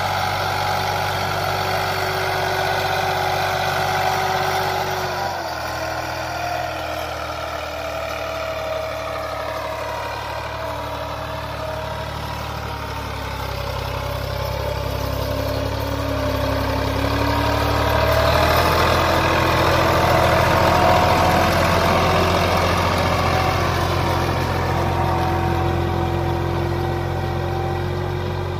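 Massey Ferguson 260 tractor's turbo diesel engine running steadily under load while pulling a disc harrow. Its note sinks a little through the first half, then climbs back and grows louder in the second half.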